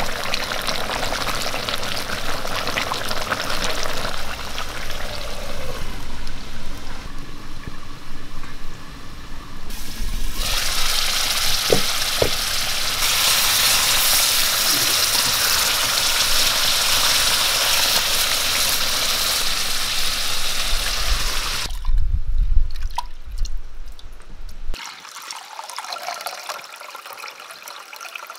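Chicken masala bubbling and sizzling in an iron kadai over a wood fire, getting louder and brighter after about ten seconds. Near the end it drops to a quieter trickle of water as soaked rice is drained.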